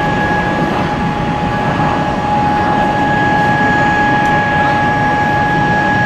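Twin jet engines of a Boeing C-32A (military 757) at taxi power: a steady whine over an even rumble.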